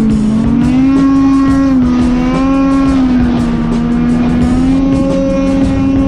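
Snowmobile engine running at high, steady revs while riding, its pitch rising and falling slightly as the throttle changes.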